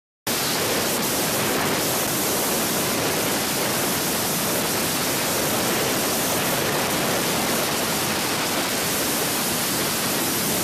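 Steady rushing wind and road noise of a car travelling at highway speed, cutting in abruptly just after the start.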